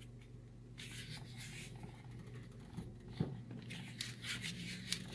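Honda Civic engine idling with a steady low hum while the steering wheel is turned, with soft rubbing and scraping and a few light knocks from the wheel and hands. No spring noise comes from the front suspension: the new strut mount kit has cured the spring vibration.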